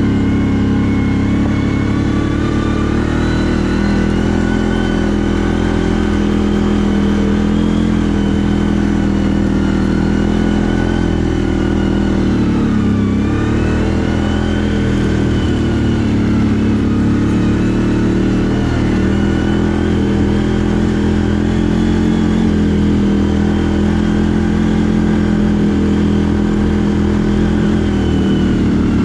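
CFMoto 1000 ATV's V-twin engine running under way. Its pitch dips and climbs back up about halfway through, and dips again near the end.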